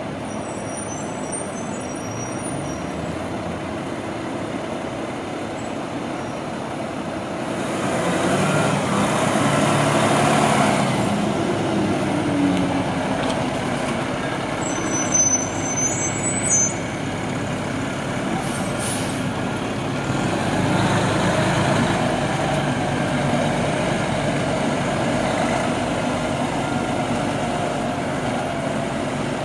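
Pierce tiller ladder fire truck's diesel engine running as the truck manoeuvres at low speed, growing louder for a few seconds about a quarter of the way in and again later. A few short, sharp sounds come about halfway through.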